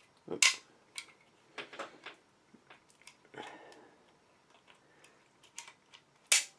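Sharp plastic clicks and short scrapes of a Pierce grip +3 floorplate extension being slid onto a Glock 17 magazine body, its locking insert pressed down. The two loudest snaps come about half a second in and near the end.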